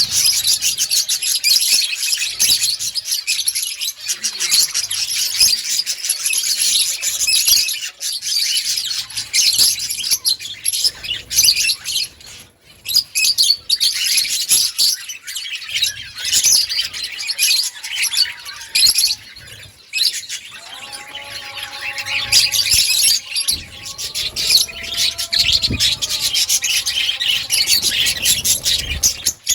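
Many budgerigars in an outdoor colony chirping and chattering continuously over one another, with short lulls about 12 and 20 seconds in.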